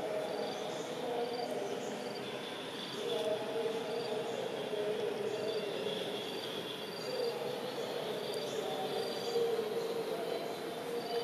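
Insects calling: short high chirps repeating every half second or so over a steady high buzz, with a low, wavering hum underneath.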